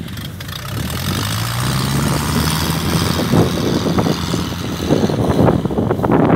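Kubota DC70 tracked combine harvester running, its diesel engine droning steadily and rising slightly in pitch about a second and a half in, under a rushing hiss and irregular clatter.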